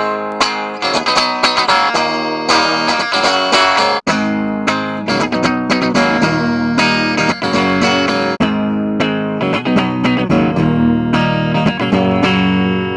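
Squier Sonic Mustang HH electric guitar strumming a run of chords through an amp, ending on a chord left to ring out.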